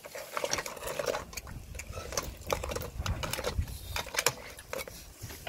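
Oyster shells clattering as tongs and fingers pick through a stainless-steel pot of cooked oysters: irregular hard clicks and knocks of shell on shell and on metal.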